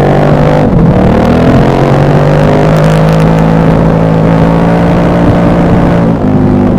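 KTM 1190 Adventure R's LC8 V-twin engine under way. The revs drop sharply in the first second, as on a gear change, then climb slowly and steadily for several seconds before dropping again near the end.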